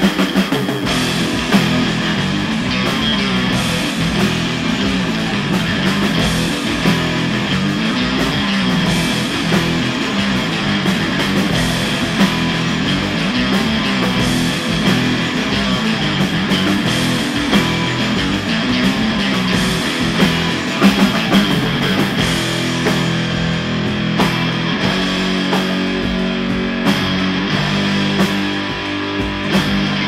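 Rock band playing a fast punk-rock song: electric guitars, bass guitar and a drum kit with cymbals, steady and loud.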